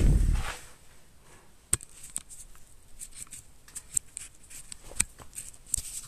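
Wind rush on the camera microphone dies away within the first second as the camera comes to a stop, followed by scattered small clicks and taps at irregular spacing: handling noise of the camera, with a hand close to the lens.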